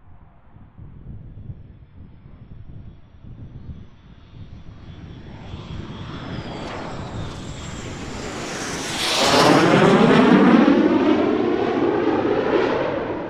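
Jet aircraft flying past close by, the X-59's single General Electric F414 turbofan. The sound builds over several seconds with high whining tones that fall in pitch, then peaks loud from about nine seconds with a wavering, phasing rush. It cuts off abruptly at the end.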